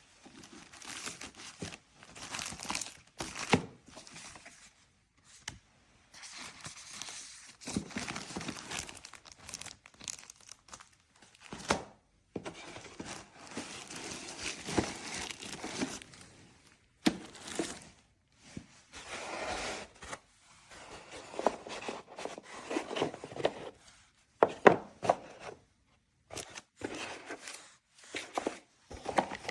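Packaging being crinkled and torn open by hand in irregular bursts, with a few sharp clicks.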